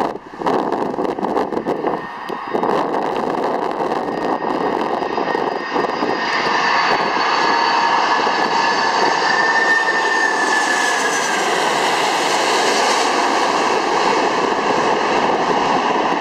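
Boeing 747-400 on landing approach passing low overhead, its four turbofan engines giving a steady jet roar with a high whine. The sound swells from about a third of the way in, and the whine dips slightly in pitch as the airliner goes past.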